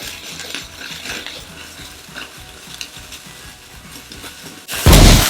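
Faint fizzing and crackling, then a sudden loud bang near the end as a balloon filled with Tide laundry detergent is blown open by a firework.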